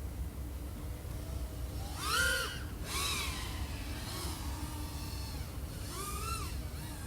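Small FPV quadcopter's brushless motors and 3.5-inch propellers whining, the pitch swinging up and back down with each throttle punch: a loud one about two seconds in, others near three and six seconds, over a steady low rumble.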